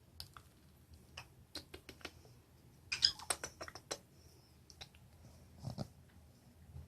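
Pet lovebird kissing and nibbling up close: a scatter of soft, quick beak clicks and ticks, with a denser run about three seconds in and a few more near six seconds.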